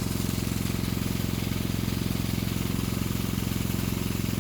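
A small engine running steadily at an even pitch, a constant low drone.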